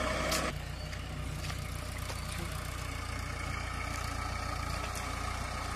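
Mahindra Arjun 555 DI tractor's diesel engine idling steadily, after louder working engine noise that drops off about half a second in.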